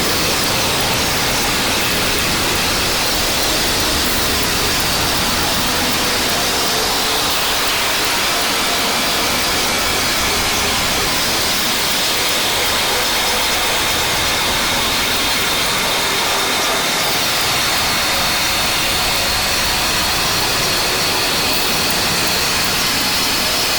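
Steady, even hissing noise with faint high whistling tones held inside it. It is an eerie space-ambience track presented as a planet's magnetosphere made audible.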